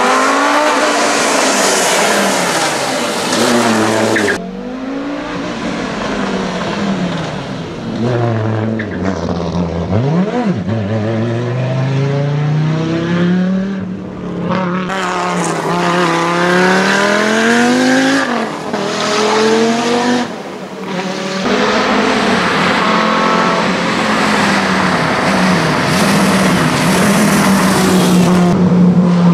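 Audi Sport quattro rally car's turbocharged five-cylinder engine revving hard at speed, its pitch climbing and dropping repeatedly with gear changes, over several separate passes that change abruptly from one to the next.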